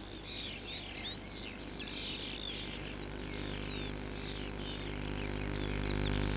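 Many small birds chirping and twittering in quick succession over a meadow, above a low steady hum; a low rumble grows louder near the end.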